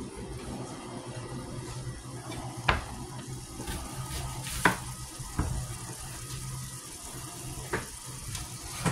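Ground beef sizzling as it browns in a frying pan, over a steady low hum. Four sharp clicks break it, the loudest about halfway through.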